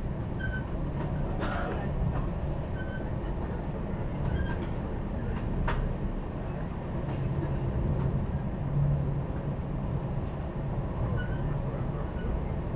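Metra commuter train running along the rails, heard from inside the passenger car as a steady low rumble, with a couple of sharp clicks.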